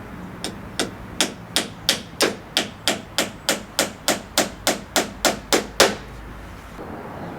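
Hammer blows on timber, a steady run of about seventeen evenly spaced strikes at roughly three a second, stopping about six seconds in.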